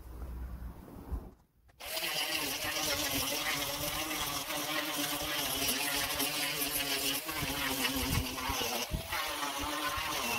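Electric power sander running steadily on timber weatherboards, a buzzing motor whine whose pitch wavers slightly. It starts about two seconds in, after a brief silent break.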